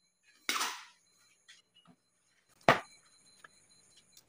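Cables and connectors being handled on a tiled floor: a short rustling swish about half a second in, a single sharp knock a little under three seconds in, and a few light clicks.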